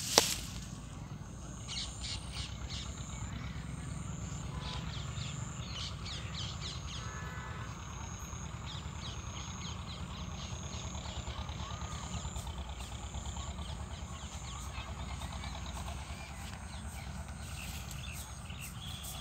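Outdoor birds calling, with short high chirps repeating throughout and a few lower calls near the middle, over a steady low rumble. A sharp click sounds right at the start.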